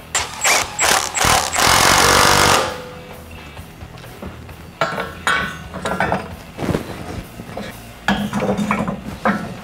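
A power tool rattles hard for about two and a half seconds, followed by a few scattered metal clinks and knocks from suspension parts being fitted. Background music plays throughout.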